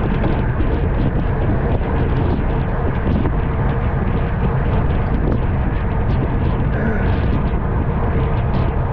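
Steady, loud wind rush on the microphone of a camera carried on a bicycle moving at race speed, with faint irregular ticks on top.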